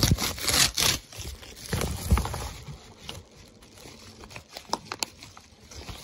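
A shipping box being opened by hand: cardboard scraping and packaging crinkling, heaviest in the first second or so, then scattered lighter rustles and clicks.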